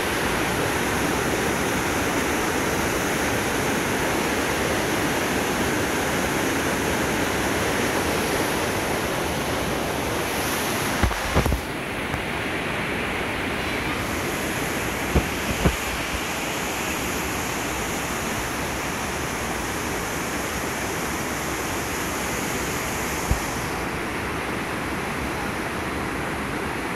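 Mountain waterfall and stream rushing steadily over rocks, with a few brief thumps about halfway through and one more near the end.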